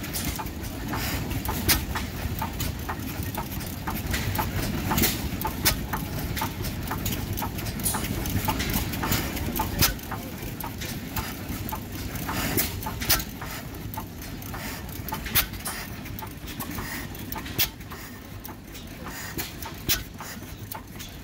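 Antique vertical stationary gas engine running, firing with sharp bangs at irregular intervals of a second or two over a steady mechanical rumble.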